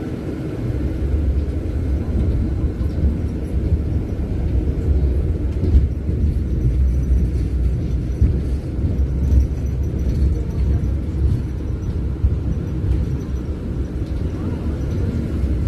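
Low, steady rumble of city trams passing close by on street track, with road traffic behind.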